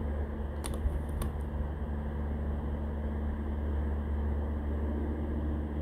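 Steady low background hum with a few faint steady tones, with two faint clicks about a second in.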